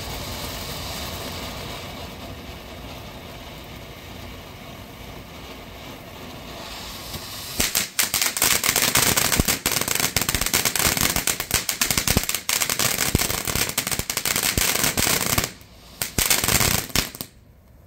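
TNT Fireworks Lava Dome fountain burning: a steady spray of sparks for the first seven seconds or so, then dense, loud crackling from about eight seconds in. The crackling breaks off briefly, comes back in one last burst, then stops near the end.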